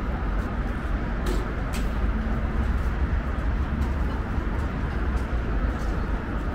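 City street noise: a steady low rumble of traffic, with two sharp clicks a little over a second in.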